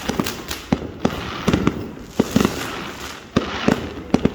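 Aerial fireworks display bursting overhead: a rapid, irregular series of sharp bangs, several a second at times, over a steady crackle of glittering shells.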